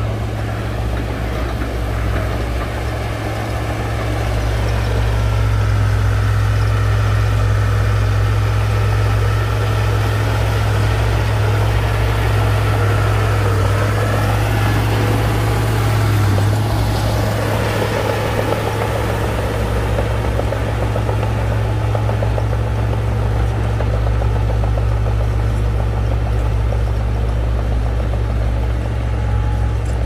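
Heavy diesel engine of a Shantui crawler bulldozer running steadily under load, with a brief rise and fall in pitch about halfway through.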